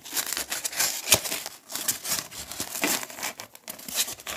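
Cardboard box and packing material rustling, crinkling and scraping in quick irregular bursts with small knocks as hands pull a boxed decoration out.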